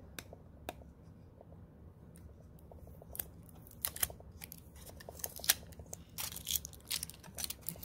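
Small clicks, taps and scrapes of a plastic mounting plate and a thin metal clip being handled and worked apart: a Blink floodlight mount's siding clip being removed. The clicks are sparse at first and come more often over the last few seconds.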